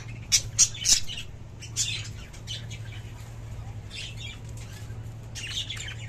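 Pet budgerigars chirping and squawking in short high bursts, loudest in the first second, then scattered calls, over a steady low hum.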